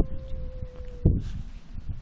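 Cat yowling in a standoff with another cat: one long, steady, drawn-out wail that breaks off about a second in, with low rumbling noise underneath.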